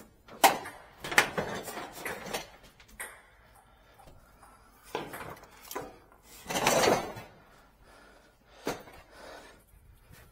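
Scattered sharp knocks and clatters, a quick run of them in the first two seconds, with a louder scraping rush lasting under a second about two-thirds through.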